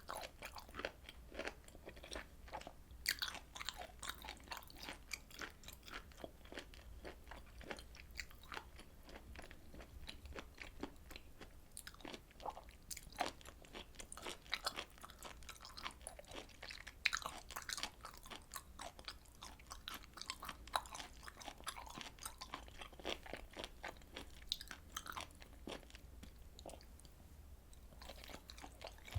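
Close-miked chewing of grilled beef intestine and tripe: wet, crackly mouth sounds with irregular crunchy bites, quieter for a couple of seconds near the end.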